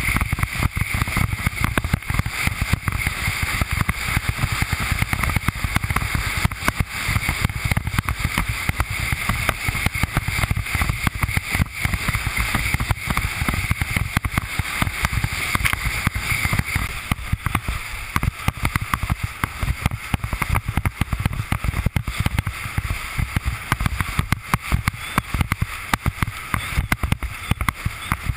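Wind buffeting the microphone over the rush of water under a windsurf board planing across chop, with a dense, irregular patter of slaps as the hull hits the waves.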